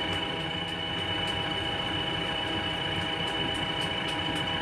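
JCB 3DX backhoe loader's diesel engine idling steadily, with a steady high-pitched whine over its low running.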